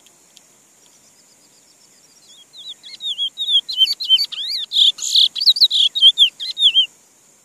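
Chestnut-bellied seed finch (picolet) singing: a fast, warbling run of sliding whistled notes that starts softly about two seconds in, grows loud and stops shortly before the end. A steady high insect buzz runs underneath.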